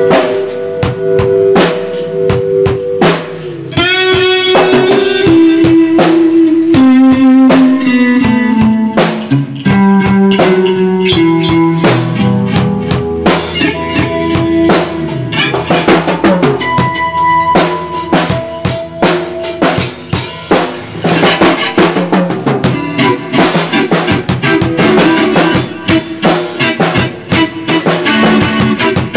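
Live rock band jamming: an electric guitar playing over a drum kit, with a guitar line stepping down in pitch a few seconds in.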